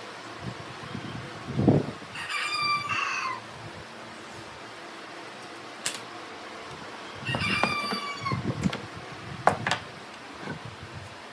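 A rooster crowing twice, each crow a little over a second long and falling away at the end. Between the crows come low thumps and a few sharp knocks of wooden boards being handled on a workbench, the loudest thump about two seconds in.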